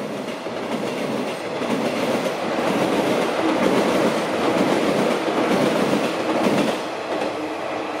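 JR 185 series electric train running past close by, its wheels rumbling and clattering over the rails. The noise builds, holds, then eases about seven seconds in.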